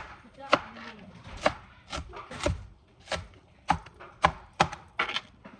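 Kitchen knife chopping onion on a cutting board: about a dozen separate, unevenly spaced knocks of the blade against the board, at a slow, unhurried pace.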